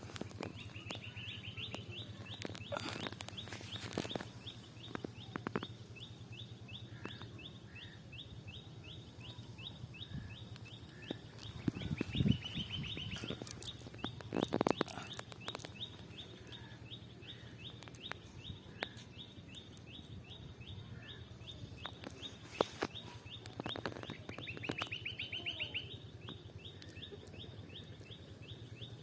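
A bird calling in a long, even series of short high notes, about three a second, with a rising run of notes three times. Scattered knocks and splashes and a steady low hum sound under it.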